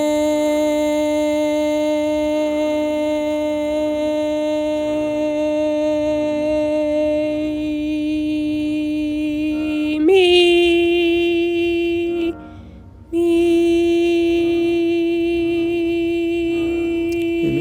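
A singing voice holding one long, steady note, then sliding up to a slightly higher note about ten seconds in. The note drops out briefly about two seconds later and resumes at the same pitch.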